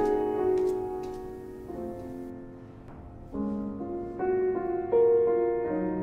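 Slow piano music: held notes die away to a quieter stretch about halfway through, then new chords come in louder.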